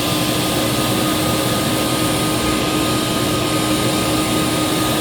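Vintage Hoover Portable 2110 vacuum cleaner running steadily: an even rush of air with a steady hum under it, drawing through the hose inlet with an airflow-test adapter fitted.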